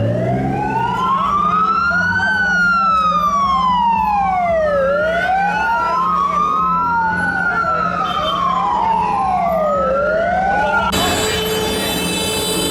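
Two emergency-vehicle sirens wailing at once, each slowly rising and falling in pitch about once every five seconds, out of step with each other, over a steady engine hum. The sirens cut off suddenly near the end, giving way to street noise with steady held tones.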